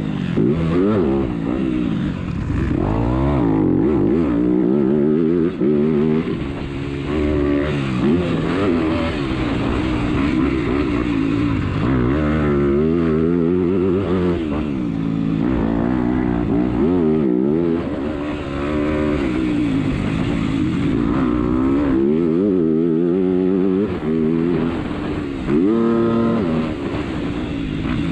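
Motocross bike engine heard close from the onboard camera during a race lap, its pitch climbing and dropping over and over as the rider opens and closes the throttle and shifts gear.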